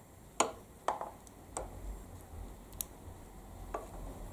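Small sharp clicks and taps of wire terminals and a plastic connector being handled while wiring a motorcycle's ignition harness: about five scattered clicks, the first the loudest.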